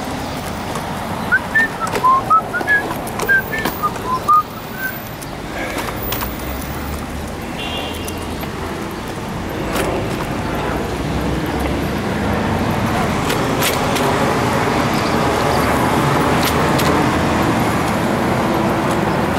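Street traffic: a steady noise of cars passing, growing somewhat louder in the second half. In the first few seconds a run of short, high, rising chirps sounds over it.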